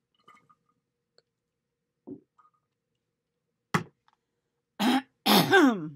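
A woman sips through a straw from a plastic cup, with faint sucking and swallowing and a sharp click just before the middle. Near the end comes a breathy burst, then a rough vocal sound falling in pitch, from a hoarse throat.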